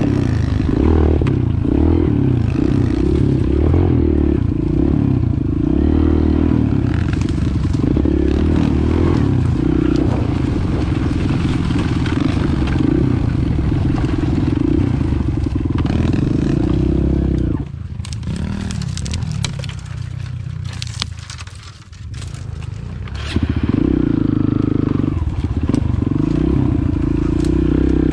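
Onboard sound of a Kawasaki KLX mini dirt bike's small four-stroke single-cylinder engine running steadily under throttle, with twigs and brush scraping against the bike. About two-thirds through the engine drops back and goes quieter for a few seconds while sharp crackles and snaps of branches come through, then it picks up again.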